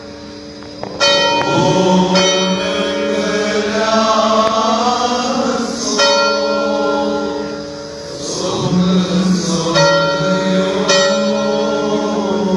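A church bell struck about five times at uneven intervals, each stroke ringing on, while men's voices chant a hymn together.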